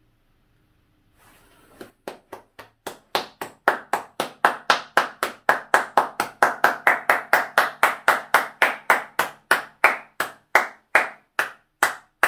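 One person clapping hands at a steady, even pace of about three claps a second, starting about two seconds in with a few softer claps, then louder.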